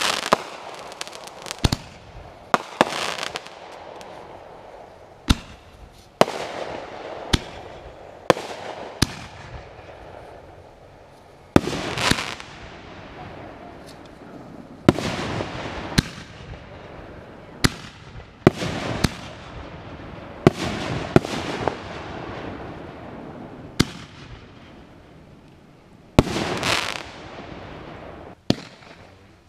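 Aerial fireworks shells bursting one after another at irregular intervals, about twenty sharp bangs, each trailing off in a fading echo.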